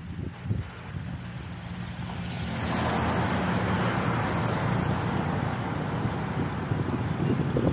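Road traffic: a motor vehicle passing close, its tyre and engine noise swelling about a third of the way in and staying loud, over low buffeting of wind on the microphone.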